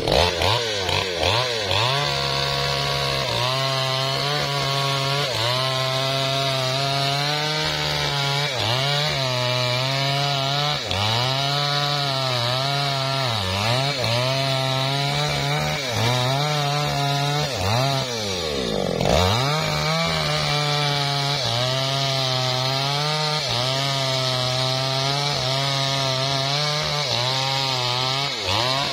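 Small Maestro two-stroke chainsaw cutting into a teak trunk at full throttle, its engine note wavering continuously as the chain loads up in the wood and clears. About two-thirds of the way through the engine falls off briefly and revs back up.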